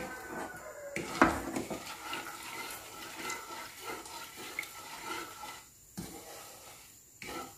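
Wooden spatula stirring caramelizing sugar syrup in a wok: the liquid swishes, and the spatula knocks and scrapes against the pan, most sharply about a second in.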